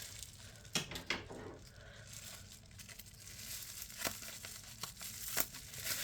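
Packaging being handled and opened by hand: soft crinkling with a few sharp crackles, the clearest about a second in and two more near the end.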